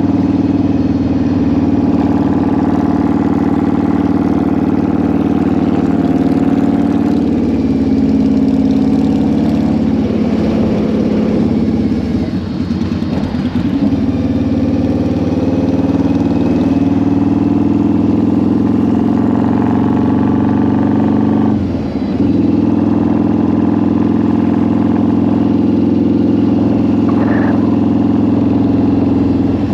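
Harley-Davidson V-Rod's 1131 cc water-cooled V-twin engine pulling the motorcycle along at road speed. The engine note rises and falls gently and dips briefly twice: once around the middle and once about two thirds of the way through.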